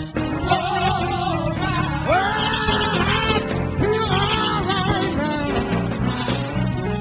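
Live gospel music: a lead singer holding long, sliding notes over a singing choir and instrumental accompaniment.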